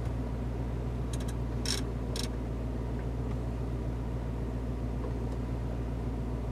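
Steady low hum inside the cabin of a stationary Mercedes-AMG G63, with a few faint clicks between about one and two seconds in.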